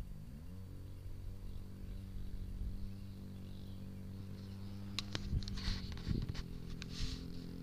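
Engine of an RC model airplane rising in pitch as it is throttled up, then running at a steady pitch. A few sharp clicks and rustles come between about five and seven seconds in.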